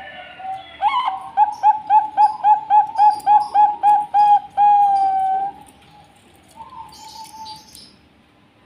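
Zebra dove (Bangkok-bred perkutut) singing its cooing song: a quick run of about a dozen short, clipped notes, about four a second, ending in one longer held note. A fainter coo follows near the end.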